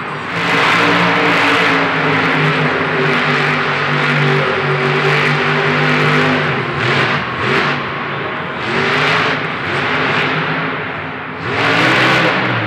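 Monster Mutt Dalmatian monster truck's supercharged V8 revving hard through a freestyle run, its pitch rising and falling as the throttle is worked, with short lifts about seven and eleven seconds in and a strong surge near the end.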